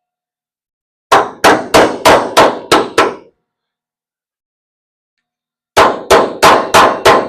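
Hammer blows on the steel torque box as it is fitted into a car's front end, each one ringing, about three a second. Seven blows come in a run starting about a second in, then there is a pause, and another run of blows begins near the end.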